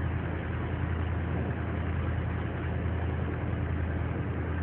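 A fishing boat's engine running steadily, a constant low drone.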